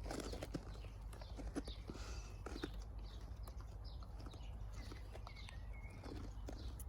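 Faint footsteps and rustling of leaves as plants are handled, with scattered light clicks.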